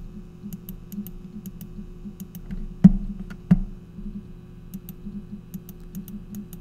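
Two computer mouse clicks about two-thirds of a second apart, over a steady low electrical hum: the left clicks that apply Pixlr's Spot Heal tool to blemishes.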